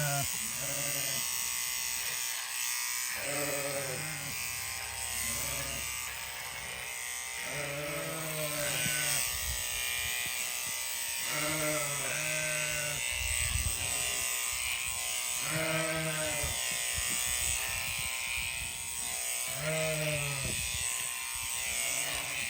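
Sheep bleating repeatedly, about ten calls a few seconds apart, over the steady buzz of electric sheep shears running.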